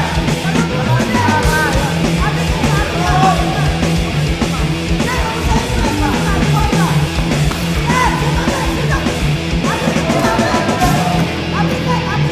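Loud rock music with a fast, steady beat.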